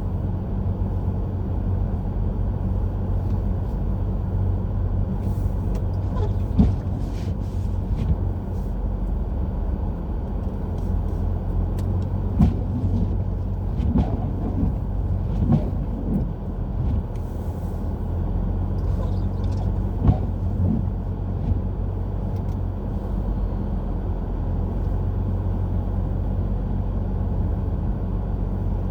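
Car driving on a snowy road, heard from inside the cabin: a steady low drone of engine and tyres, with a few short knocks and clicks scattered through.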